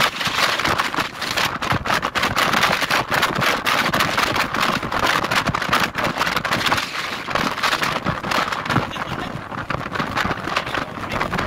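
Strong gusting wind buffeting the microphone: a loud, dense rush broken by many rapid crackles.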